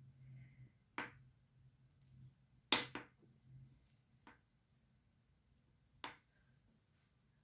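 Short sharp taps and clicks from handling a tiny shoe figurine and setting it down on the tabletop: four in all, the loudest a quick double tap about three seconds in, over a faint steady low hum.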